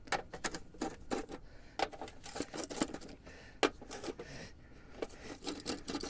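Plastic lug-nut caps being unscrewed by hand from a truck wheel: a string of irregular light plastic clicks and scrapes.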